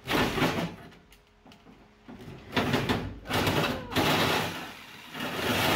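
Cordless power metal shear cutting through rusted cab sheet metal in three bursts: about the first second, again from about two and a half seconds in, and once more near the end.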